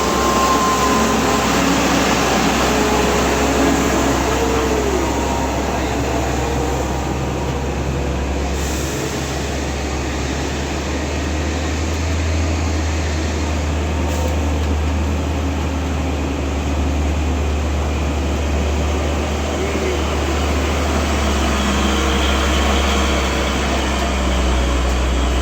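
Heavy truck engine running with a steady low drone, with indistinct voices in the background.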